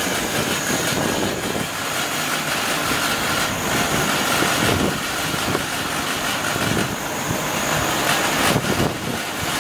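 A 22 kW nut butter grinding mill running steadily while roasted hazelnut paste is fed through it. It makes a dense, even mechanical rush with a thin high whine held over it.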